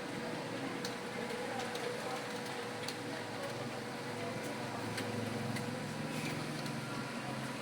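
Computer keyboard keys clicking at irregular moments over a steady background hum.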